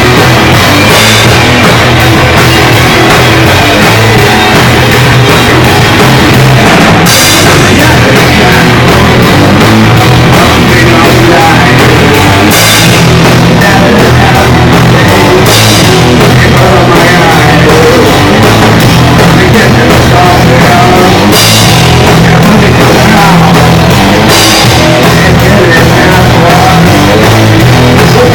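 Loud rock music from a band with a drum kit, crash cymbals striking every few seconds over a dense, steady wall of sound.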